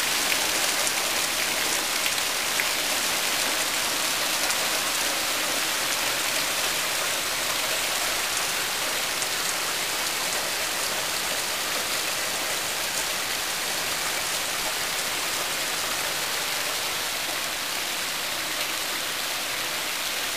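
Heavy cloudburst downpour falling steadily on grass and an asphalt path, easing slightly toward the end.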